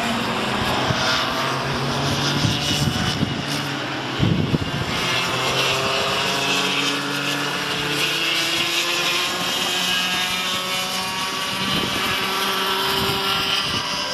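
Cadet go-kart engines buzzing as a pack of karts races round the circuit, their pitch rising and falling as they accelerate and brake through the corners. There are a few brief bumps in the first third.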